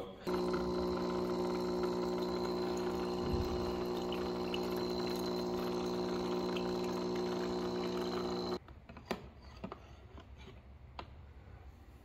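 HiBREW single-serve capsule coffee maker's pump humming steadily as it brews into a mug, cutting off suddenly about eight and a half seconds in. A few faint clicks follow.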